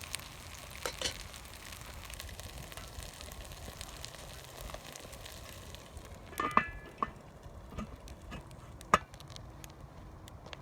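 Food sizzling as it fries in a pan, with a few sharp clicks. About six seconds in the sizzling drops away, leaving a handful of knocks and clinks.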